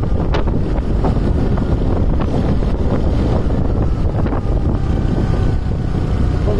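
Wind buffeting the phone's microphone: a loud, steady, low rumble.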